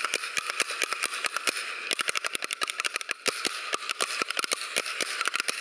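Concert audience applauding: many hands clapping irregularly in a dense, steady patter.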